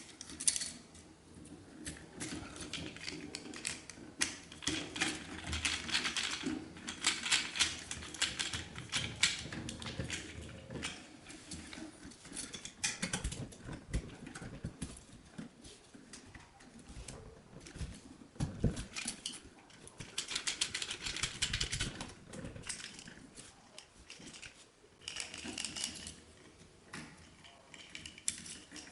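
Irregular clicks, taps and scraping of a screwdriver and copper wires on an electrical receptacle as the wires are wrapped around its terminal screws and the screws are tightened.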